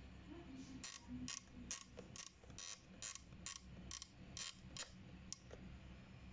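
Temperature dial of a Sokany steam iron being turned by hand, giving a regular run of about eleven light clicks, roughly two a second, that stop about five seconds in.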